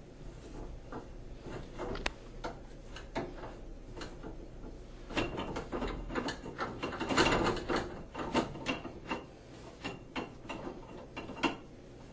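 Mini tubing cutter being turned around a copper pipe: irregular clicking and scraping of the cutter wheel and rollers as it works through the pipe. The sound grows busier and louder for a few seconds in the middle.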